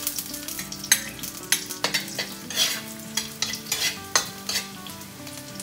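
Garlic slices sizzling in hot chicken fat in a wok while a metal ladle stirs them, scraping and knocking against the pan at irregular moments.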